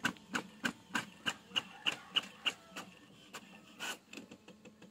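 Brother DCP-T720DW inkjet printer making a copy: a steady run of sharp mechanical clicks, about three a second, then lighter, irregular clicking and a short whirr near the end as the printed sheet comes out into the tray.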